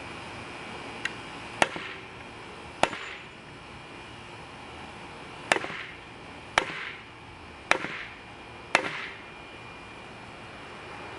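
Large chopper knife blade chopping down through a thin wooden stick laid on a 2x4, cutting pieces off and biting into the board below: a light tap, then six sharp chops at uneven spacing.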